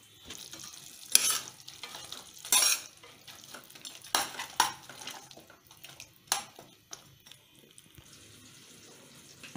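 A spatula stirring and tossing fried chicken pieces through sauce in a pan, with several sharp scrapes against the pan over a light sizzle.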